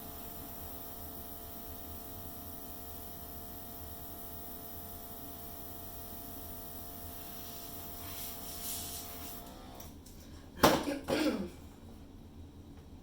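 Hair dryer running with a steady hum and hiss, switched off almost ten seconds in; about a second later someone coughs.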